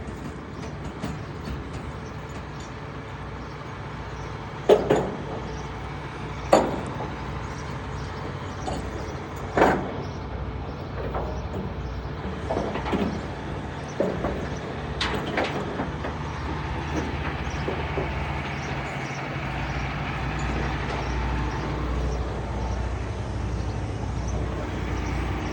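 Crane truck engine running steadily, its low rumble growing louder about two-thirds of the way in as the lift gets under way, with several sharp knocks from the rigging scattered through the first half.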